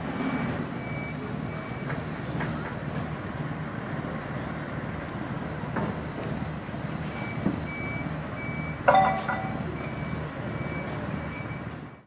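A vehicle's reverse-warning beeper sounding steady repeated beeps over a running engine, pausing for a few seconds in the middle. A short, loud blast about nine seconds in.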